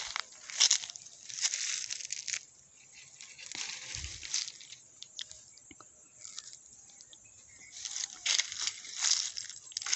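Dry grass and fallen leaves rustling and crunching in irregular bursts, as from walking through undergrowth and brushing past grass stems, quieter for a few seconds in the middle.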